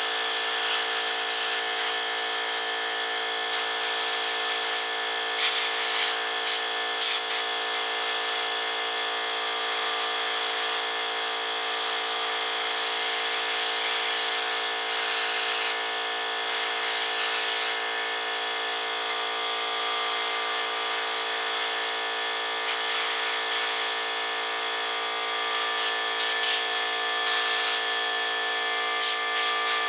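Central Pneumatic 2-1/2 HP cast-iron air compressor running steadily with an even motor-pump hum. Over it, a sandblaster's hiss of air and sand comes and goes in short irregular bursts, each lasting from a fraction of a second to a couple of seconds.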